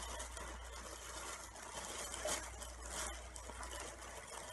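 Rustling of a cloth gift bag and the object inside as small hands feel around in it, over a low steady hum.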